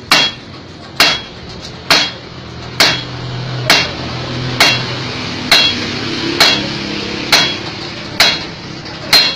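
Hand hammer forging red-hot steel on a heavy steel anvil block: a steady rhythm of about one blow a second, eleven blows, each with a short metallic ring.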